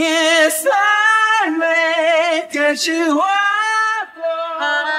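A singing voice from a background song, holding long notes with a wavering vibrato and sliding between them, with short breaks between phrases.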